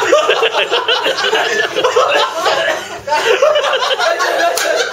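A group of people laughing hard together, with excited voices mixed in; the laughter dips briefly about three seconds in.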